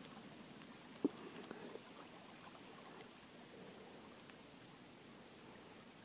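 Faint, steady outdoor background on a calm lakeshore, with one sharp knock about a second in and a few faint ticks just after.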